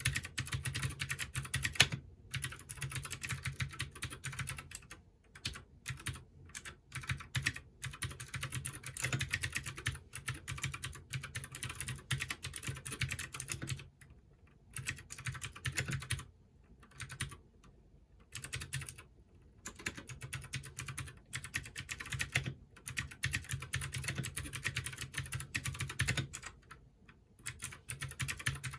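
Typing on a Keychron K6 60% mechanical keyboard with clicky Gateron Blue switches: quick runs of keystrokes, broken by short pauses about halfway through and again near the end.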